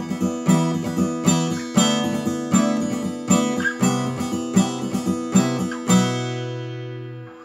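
Instrumental music: acoustic guitar strummed in a steady rhythm, the last chord left ringing and fading near the end.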